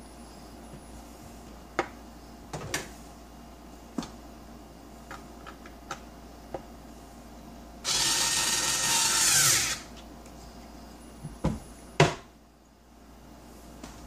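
Clicks and knocks of handling on a wooden cabinet door. Then a power drill runs for about two seconds, driving the screw for a cabinet knob, its pitch falling as it stops. A few more knocks follow.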